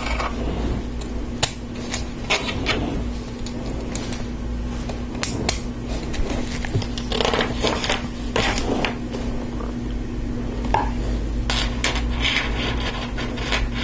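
Hard plastic LEGO Technic parts clicking and rattling at irregular moments as axles, gears and connectors are handled and pushed together by hand, over a steady low hum.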